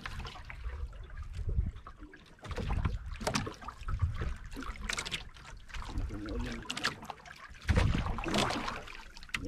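Water slapping and splashing against the hull of a small outrigger boat in irregular bursts, with wind rumbling on the microphone.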